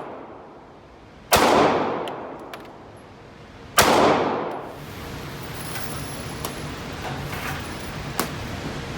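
Two pistol shots about two and a half seconds apart, each ringing out in a long echo, then a few faint clicks.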